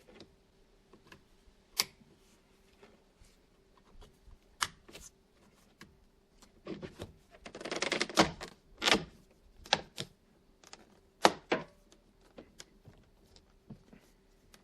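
Hard plastic clicks and snaps of a power window and door lock switch bezel being handled, plugged in and pressed into a truck's door panel, with a short burst of rattling about halfway through.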